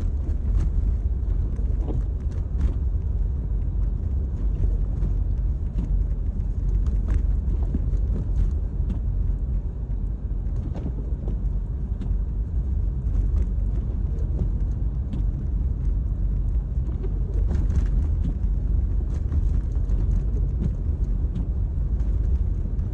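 Steady low rumble of a car's road and engine noise heard from inside the cabin while driving on a snowy road, with scattered faint clicks.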